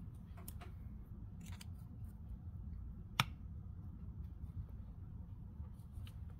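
Quiet handling of a Visconti Viscontina fountain pen as it is put away, with a few faint clicks and one sharp click about three seconds in, over a steady low hum.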